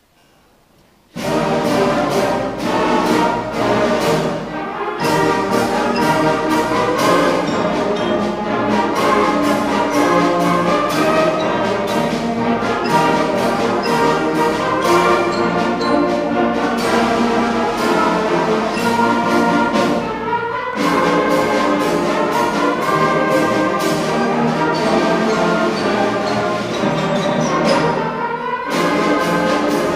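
Elementary-school concert band of woodwinds and brass playing a full piece with the conductor. The band comes in abruptly about a second in and keeps going, with brief breaks between phrases.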